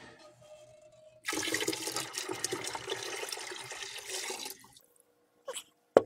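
Ferrous sulfate solution poured from a large glass beaker into a plastic bucket of gold-bearing aqua regia solution, a steady splashing pour that starts about a second in and stops near the end. This is the iron sulfate being added to precipitate the gold. A short sharp click comes right at the end.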